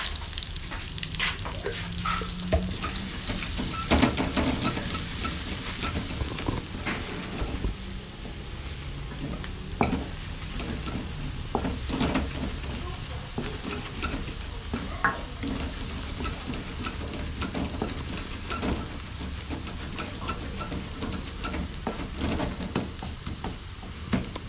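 Minced garlic sizzling in butter and oil in a metal wok, stirred with a wooden spatula that scrapes and knocks against the pan at irregular moments.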